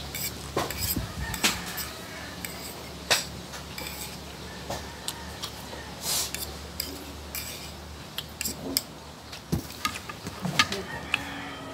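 Metal fork clinking and scraping on a plate, with chewing and mouth sounds of eating between the clinks, over a steady low hum.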